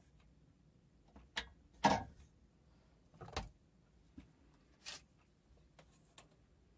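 A few separate knocks and clatters of workshop tools being handled, the loudest about two seconds in. No motor is running.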